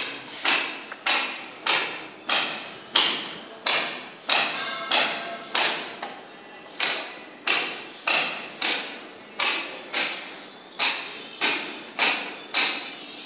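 Steady hammering with a ringing metallic tone, about three blows every two seconds.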